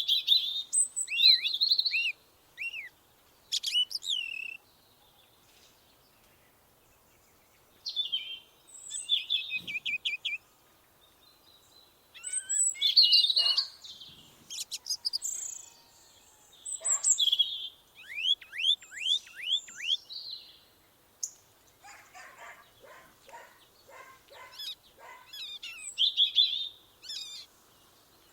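Songbirds singing in short phrases of high chirps and trills, with quiet pauses of a second or two between them. Partway through comes a quick run of downward-slurred notes.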